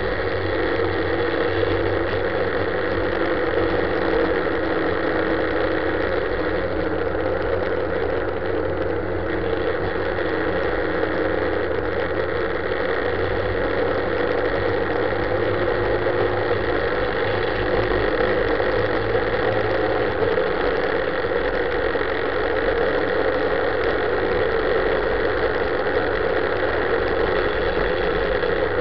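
Motorcycle engine running steadily at about 3,500 rpm while cruising, with rushing wind and road noise.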